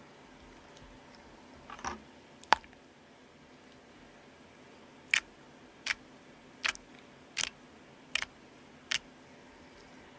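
Homemade borax slime being worked by hand on a glass tabletop: a wet squelch and a sharp click about two seconds in, then six sharp sticky pops, evenly spaced about three-quarters of a second apart, as fingers press and pat the slime.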